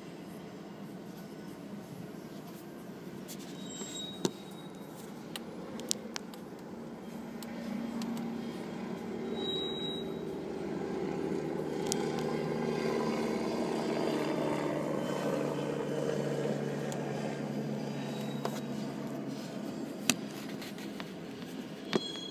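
BNSF coal train's hopper cars rolling past, heard from inside a car: a steady rumble that swells in the middle and then eases, with a few sharp clicks.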